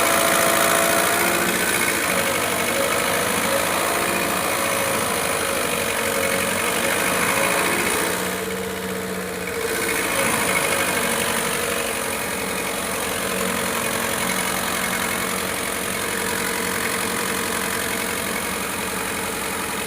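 Diesel fuel injection pump running steadily under test, a continuous mechanical hum and hiss; about eight seconds in the hiss briefly drops away and then comes back.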